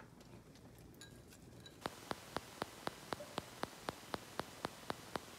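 Steady, evenly spaced ticking, about four ticks a second, starting about two seconds in. Before it there are only a couple of faint clicks.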